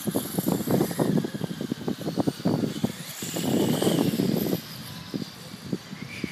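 Electric radio-controlled motorcycles running on an asphalt track, their motors a faint high whine that shifts in pitch, under a dense crackling rumble on the microphone that swells about three and a half seconds in.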